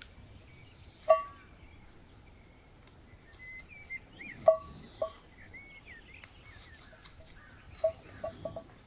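Freshly pulled radishes knocking into an enamel metal bowl, each knock ringing briefly: one about a second in, two near the middle, and four quick ones near the end. Birds chirp faintly behind.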